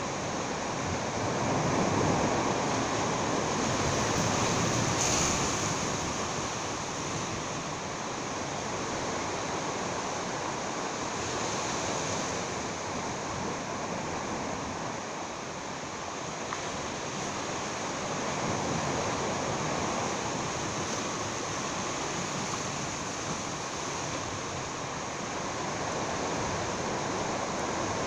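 Sea surf washing and breaking against the rocks of a jetty, a steady rushing noise that swells a little in the first few seconds.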